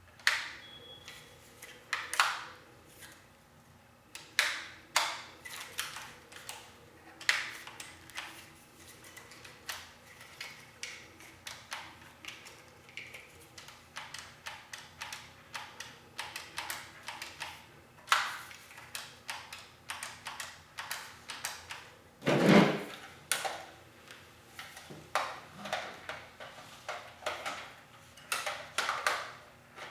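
Irregular clicks, knocks and rattles of an airsoft rifle's plastic and metal parts being handled. About two thirds of the way through comes a heavier, longer clatter, the loudest sound.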